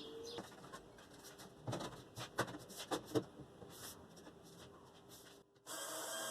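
A few light knocks and clicks, then a small motor-driven power tool starts abruptly near the end and runs with a steady whir.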